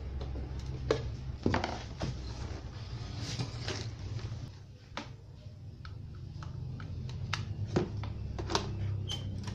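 Irregular clicks and knocks of hands handling and fastening the plastic cabinet and back cover of a Sony Wega CRT television, over a steady low hum.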